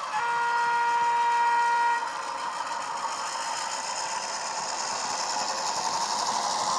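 Sound decoder in a model Irish 181 class diesel locomotive, played through its small onboard speaker: one horn blast of about two seconds, then the diesel engine sound running and slowly growing louder as the model comes closer.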